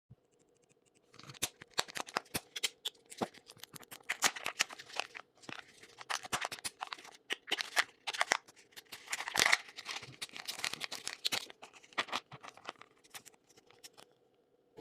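Close handling noises from hands working on a homemade Kinder Surprise egg: a dense, irregular run of crackles, clicks and rustles, stopping shortly before the end.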